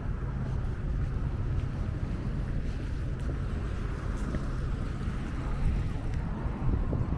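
Wind buffeting the microphone outdoors: a steady, uneven low rumble with no distinct events.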